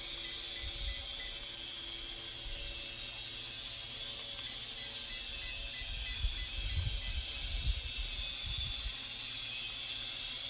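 Mini quadcopter drone's propellers whirring steadily at a high pitch, with two runs of quick electronic beeps, about four a second, near the start and again in the middle. Low thumps come in around the middle.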